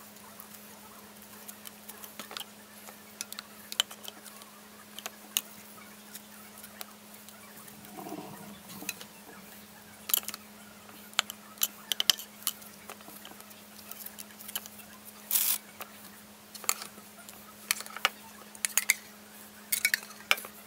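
Saltine crackers being handled and laid into a dish, giving scattered light taps and crinkles, with a few louder clinks near the end as the stainless pot of strawberries is tipped over the dish. A faint steady hum runs underneath.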